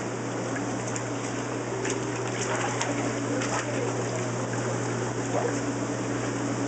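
Hot tub pump and jets running, a steady hum with water churning and bubbling.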